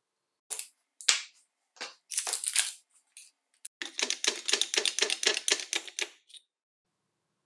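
Metal parts of a circular saw's motor armature clinking as they are set up in a press: a few separate knocks and a short rattle. Then a quick, even run of metallic clicks, about seven a second, for roughly two and a half seconds while the press ram bears on the cooling fan and bearing on the armature shaft.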